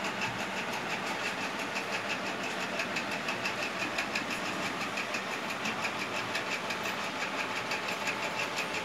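A machine running steadily with a fast, even rattling pulse.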